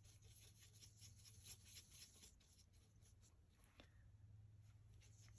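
Faint scratching of a paintbrush scrubbing acrylic paint onto mixed media paper in quick, repeated short strokes, easing off about three seconds in. A low steady hum runs underneath.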